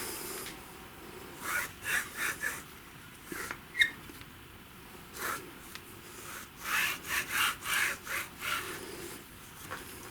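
Short scraping strokes of a hand tool worked back and forth on a workpiece: a run of about four strokes, a sharp click, then a second run of about five strokes.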